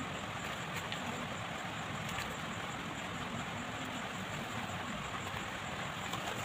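Steady, even background hiss with a few faint light ticks.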